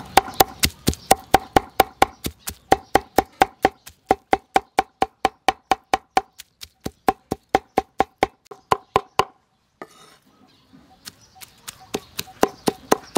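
Knife chopping on a chopping board, mincing grilled catfish for koi, in a fast even rhythm of about four to five strokes a second. It stops for about two seconds near the end, then starts again.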